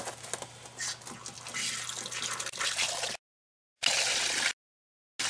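Water running from an outdoor hose bib into a glass measuring cup, the splash getting louder about a second and a half in as the cup fills. After about three seconds the sound cuts in and out in short bursts with dead-silent gaps between.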